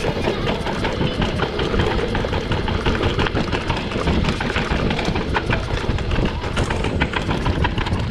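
Mountain bike riding over rough ground: a steady rumble with many quick rattles and clicks from the bike.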